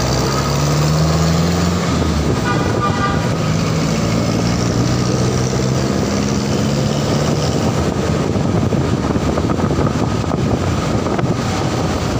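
Motorcycle riding in city traffic: its engine running with a slight rise in pitch over the first two seconds, under steady wind and road noise, with surrounding traffic engines.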